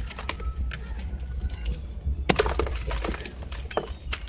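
Gritty crunching and crackling as hands squeeze and crumble a damp lump of sand-cement, the loudest crunch about two seconds in.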